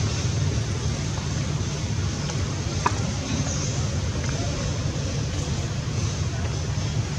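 Steady outdoor background noise, mostly a low rumble with an even hiss over it, and a brief high chirp about three seconds in.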